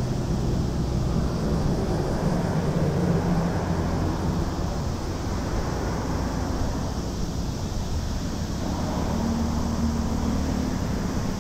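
Road traffic on a nearby street: a steady low rumble of passing cars that swells slightly about two to three seconds in.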